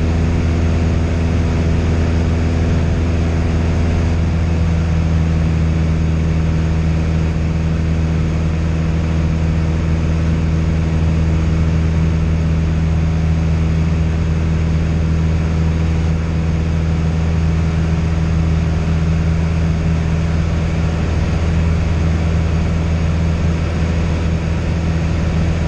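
Light single-engine propeller aircraft's engine and propeller droning steadily inside the cockpit in cruise flight, a constant low hum with an even rush of noise over it.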